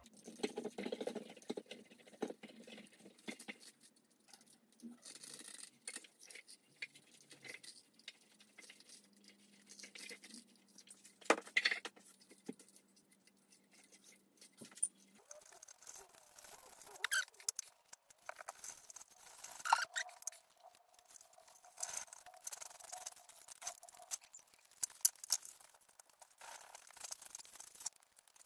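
1 mm stainless steel wire rope being wound by hand into the grooves of a 76 mm PVC pipe former: irregular scraping and rubbing as the pipe turns and the wire slides over the plastic, with occasional sharper clicks.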